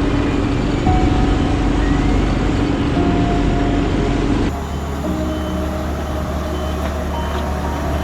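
Heavy road-paving machinery engines running steadily, with a sudden change about halfway through to a slightly quieter machine sound.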